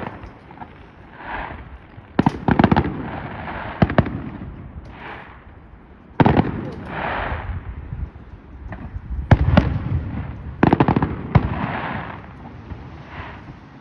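Aerial fireworks going off, a sharp bang every couple of seconds, each followed by a fading crackle and rumble.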